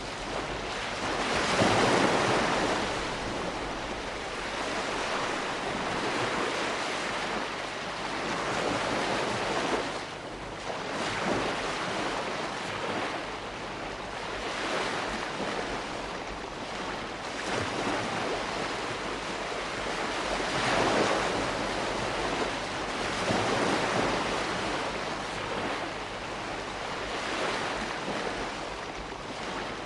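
Calm sea wash: gentle waves washing in and falling back over a steady hiss of surf, swelling at irregular intervals several seconds apart.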